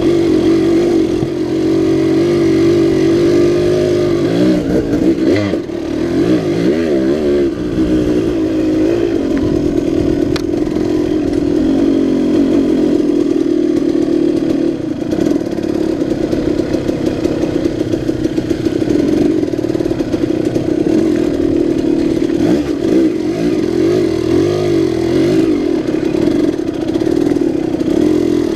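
2006 KTM 200 XC-W's two-stroke single-cylinder engine running as the bike is ridden along a trail, its pitch rising and falling continually with the throttle.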